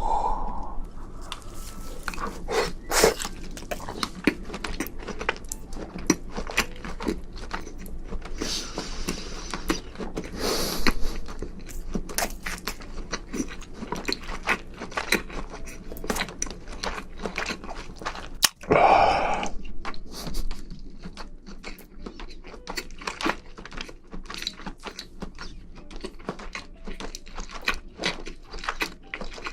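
Close-miked mouth sounds of black tiger shrimp being eaten: chewing, biting and crunching, with many quick clicks and crackles and a few louder rustling bursts.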